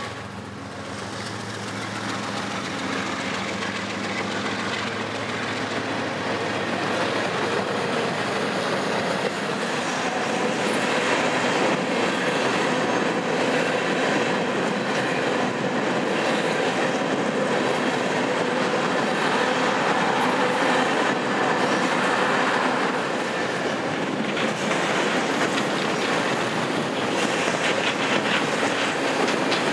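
A long freight train of empty coal cars rolling past at speed: steady steel-wheel rumble with rapid clickety-clack over the rail joints. It builds over the first few seconds, then holds.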